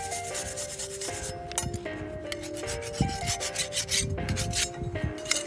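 Hand scraper rasping in repeated strokes over a Toro TimeMaster mower blade, scraping off caked dead grass. A background music melody plays underneath.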